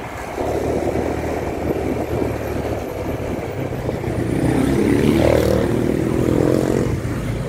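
Motorcycle engine running steadily while riding, with road and wind noise. About halfway through, oncoming motorcycles pass close by and the sound swells for a couple of seconds, with a second engine note rising and then falling away.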